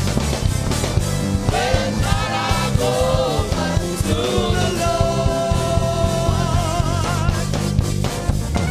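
Gospel music: a singer with a wavering vibrato voice over a steady bass line and drums.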